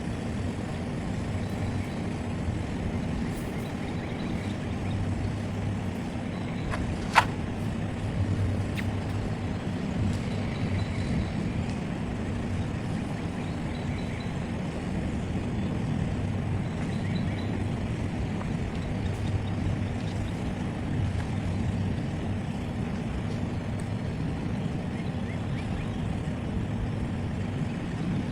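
Steady low rumble of a running vehicle, with one sharp click about seven seconds in.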